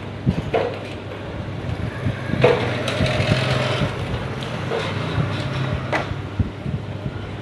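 Handling noises: a few sharp clicks and knocks, with a louder rustling clatter about two and a half seconds in, over a steady low hum.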